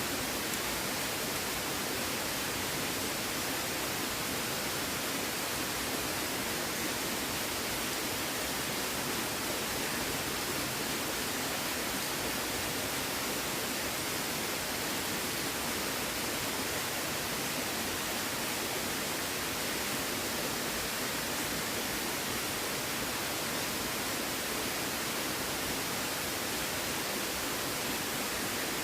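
Steady rushing of water, an even hiss with no distinct splashes, knocks or crackles.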